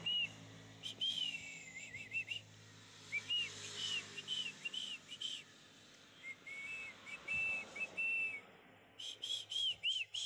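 Short, high whistled notes, each rising and falling, in quick runs of four to six with short pauses between the runs.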